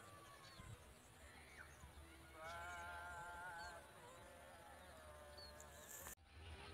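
Faint outdoor quiet broken by one distant, slightly wavering bleat-like animal call lasting about a second and a half, midway through; the sound drops out briefly near the end.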